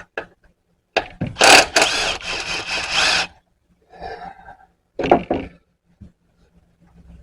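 Power drill or driver spinning a bolt out of the harmonic balancer. It runs in one loud burst of about two seconds, followed by a second short burst about five seconds in.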